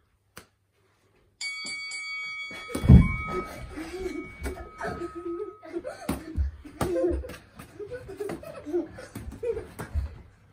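A boxing bell rings once about a second and a half in, its tone dying away over a few seconds. A heavy thump follows. Then children laugh and shriek through a sparring bout, with scattered thuds of gloved punches.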